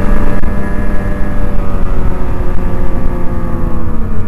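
Snowmobile engine running at speed on the trail, its pitch slowly easing down as the throttle comes back a little, over a steady low rumble of the machine and track.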